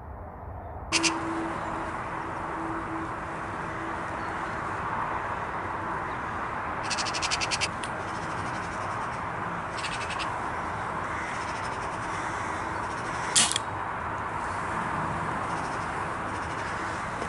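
Magpies chattering in two short rapid rattles, then a single sharp crack of an air rifle shot, over steady wind and field noise.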